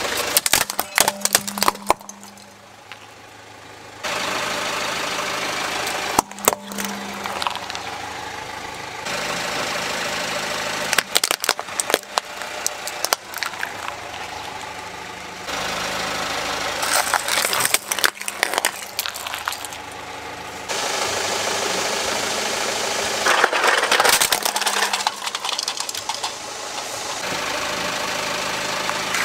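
A car's engine running while its tyre rolls over plastic toys, with clusters of sharp cracks and snaps as the plastic breaks under the weight. The background changes abruptly several times.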